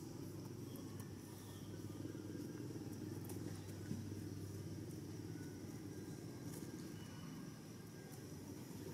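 Faint, steady low rumble with a low hum under it, and one soft knock about four seconds in.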